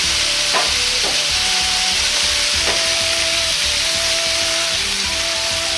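Chicken thigh pieces sizzling in oil in a carbon-steel wok, a steady hiss as they are seared at medium heat to brown the surface, with a few short clicks.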